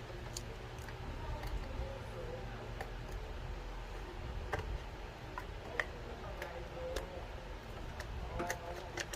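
Scattered small clicks and taps at uneven intervals as a screw and the plastic switch parts are handled and tried for fit, over a steady low hum.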